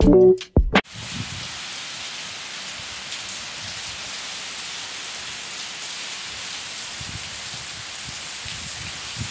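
Heavy rain falling steadily. A moment of loud music plays at the very start and cuts off within the first second.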